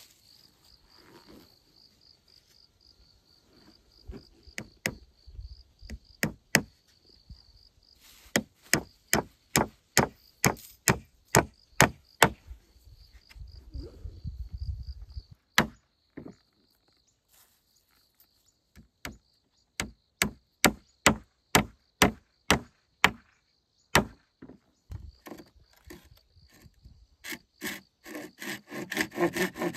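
Repeated sharp strikes on wood, in runs of about two a second with pauses between, over a steady high insect chirr. Near the end a quick back-and-forth rasping starts, like a hand saw cutting wood.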